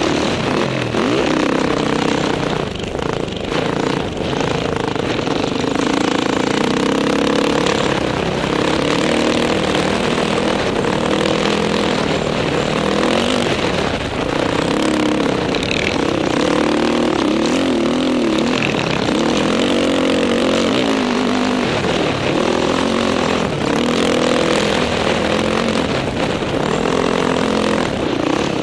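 Dirt bike engine under way, heard close up from the rider's helmet, its revs rising and falling with the throttle over a steady rush of wind noise.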